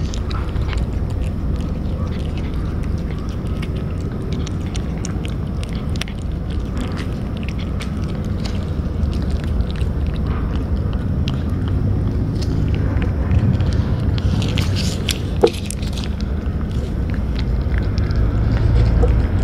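Stray cats chewing wet food up close: a run of small, irregular wet clicks and smacks, with one sharper click about three-quarters through, over a steady low rumble.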